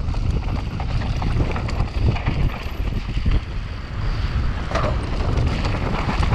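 Wind buffeting a helmet-mounted camera's microphone over the rumble of mountain bike tyres on a dusty, stony dirt track, with a few short knocks and rattles from the bike.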